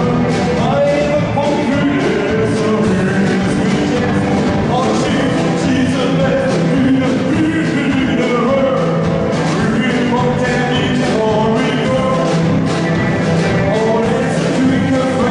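Rock and roll band playing live, with a steady drum beat under a singing voice.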